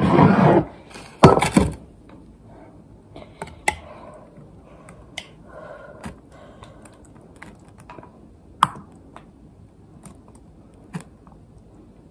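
Cookware and a spoon clattering as chili is moved from a pan into a pot. A loud clank comes about a second in, followed by scattered light clinks and knocks.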